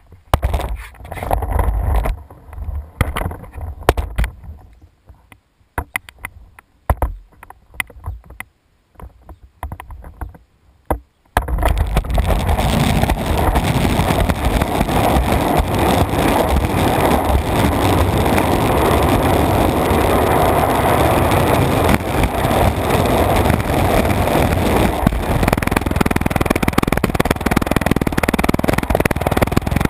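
Skateboard wheels rolling fast on asphalt, a loud steady rumble heard right at the deck, starting suddenly about eleven seconds in. Before that, scattered knocks and scrapes as the board is handled.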